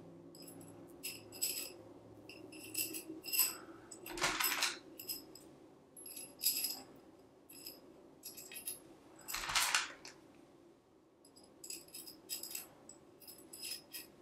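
Light metallic clicks and small rattles from hands working an aluminium tube strut while threading elastic cord through its end. Two longer rustling swishes come about four seconds and nine and a half seconds in.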